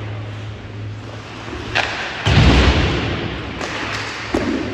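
Hockey game sounds in a rink: a loud, deep thud against the boards a little past halfway, with sharp stick-and-puck clicks before and after it, over a steady low hum.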